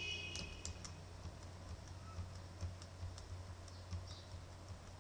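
Computer keyboard being typed on, with scattered, irregular keystrokes over a low steady hum.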